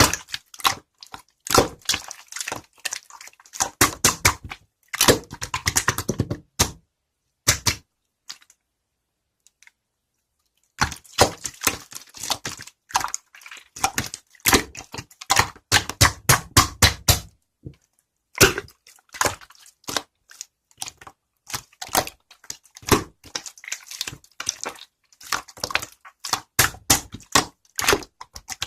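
Quick runs of sharp clicks and taps in a small room, with a near-silent pause of about three seconds around eight seconds in.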